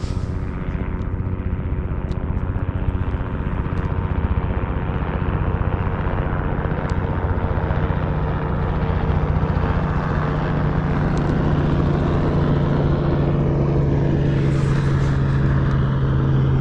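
Helicopter flying straight overhead: a low, throbbing rotor and engine drone that grows steadily louder as it comes near.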